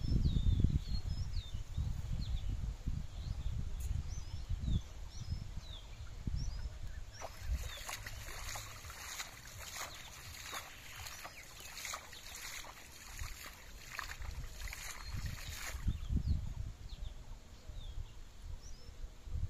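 Water splashing as a cast net is hauled and shaken in shallow water: a run of splashes from about seven seconds in, lasting some eight seconds. Birds chirp in the first few seconds over a low rumble.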